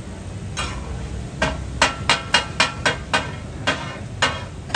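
Metal spatulas clanging on a large tawa griddle as fish katakat is chopped and tossed: about ten ringing metallic strikes, coming fastest, about four a second, a couple of seconds in.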